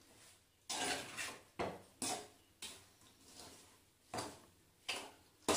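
A steel spoon scraping and clinking against a stainless steel kadai while puffed-rice uggani is stirred, in about nine short, sharp strokes at an uneven pace of one or two a second.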